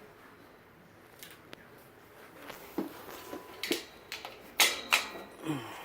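Sharp clicks and metal knocks as mattress retainer brackets are fitted onto the steel frame of an Invacare electric hospital bed. A few faint clicks come first, then louder knocks through the second half, the loudest about four and a half seconds in.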